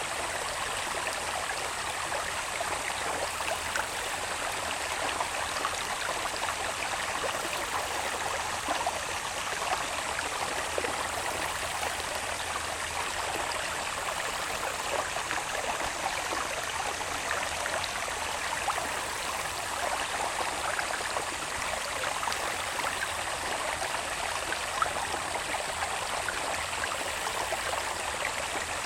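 Small irrigation channel running down from the hills, its water babbling steadily. Over it runs a thin, steady high-pitched insect drone.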